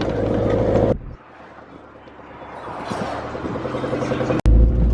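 Car engine and road noise heard from inside a moving taxi. The sound drops away suddenly about a second in, then builds slowly, and a click near the end gives way to a loud, steady low hum.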